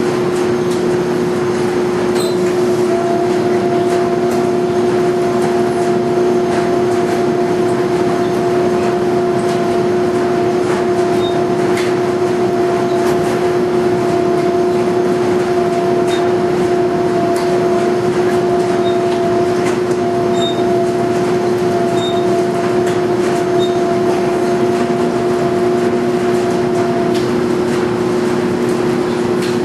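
Speed Queen 125 lb commercial washer-extractor tumbling a load of wet entry mats in its wash cycle: a steady mechanical hum with held tones, mixed with laundry dryers running. A higher tone joins about two seconds in and drops out near the end.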